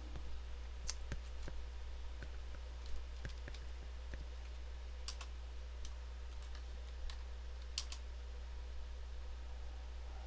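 Computer keyboard being typed on: about a dozen separate key clicks at an unhurried, uneven pace, over a steady low hum.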